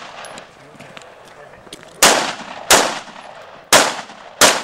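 Rifle shots fired at steel targets: four sharp cracks in two quick pairs, the first about two seconds in, each trailing off briefly.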